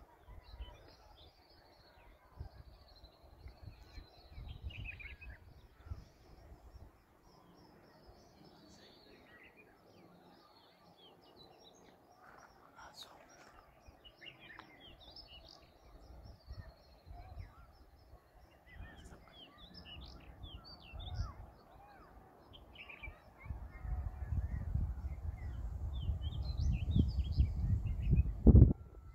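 Many small birds chirping and calling in short, scattered notes, over a low rumble that comes and goes and is heaviest for the last five seconds.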